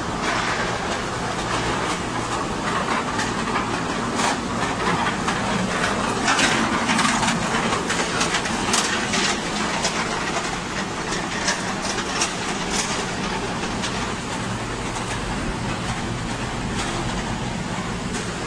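Aluminum dross processing machinery running: a steady mechanical noise with irregular clattering and ticks, busiest in the middle stretch.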